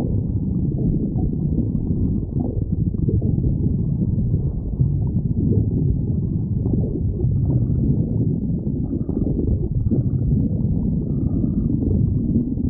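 Human stomach growling: a low, continuous rumble that swells and eases unevenly without a break.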